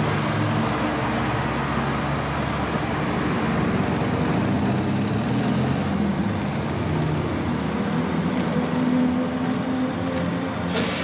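Steady street traffic noise with a vehicle engine running.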